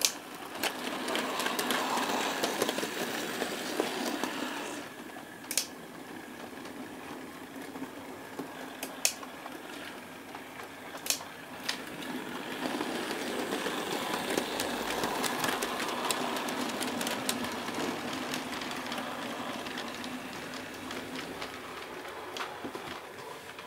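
OO-gauge model train running along the track: a small electric motor whirrs and the wheels rumble on the rails, swelling twice as the train runs close, with a few sharp clicks.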